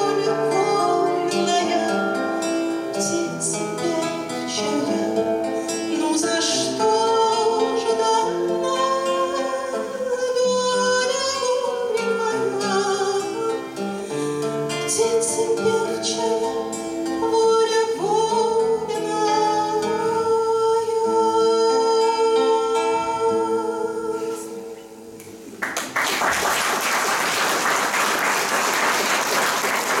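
A woman sings with her own strummed nylon-string classical guitar, ending the song on a long held note. After a short pause, the audience breaks into applause near the end.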